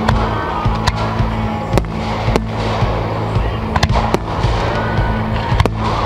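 Firework shells bursting overhead: sharp bangs at irregular intervals, over a dense crackling din.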